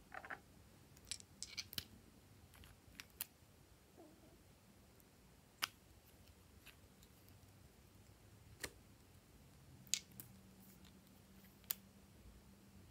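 Sharp little plastic clicks and taps from nail polish bottles being handled: caps twisted and pulled off, bottles knocking together. A quick cluster of about six clicks comes first, then single clicks a second or two apart, with near silence between them.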